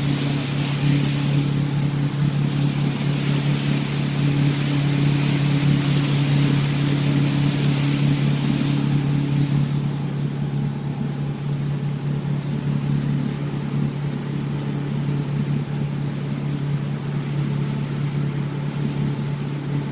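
Motorboat engine running at a steady speed, a constant low drone, with the rush of water and wind. The rush and an upper engine tone drop away about halfway through, as if the boat eases off.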